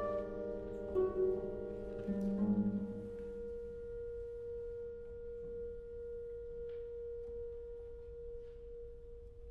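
Contemporary classical chamber ensemble playing: a few overlapping held notes with two short accents in the first three seconds. The texture then thins to one quiet sustained note, held to the end, with a few faint soft clicks.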